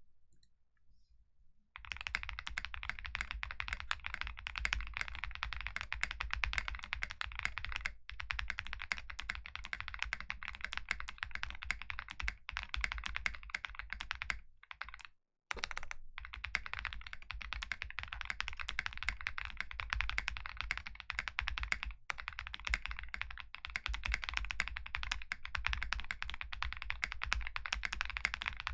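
Typing test on a Zoom TKL mechanical keyboard with GMK keycaps: fast, continuous keystrokes that start about two seconds in and stop briefly about halfway through.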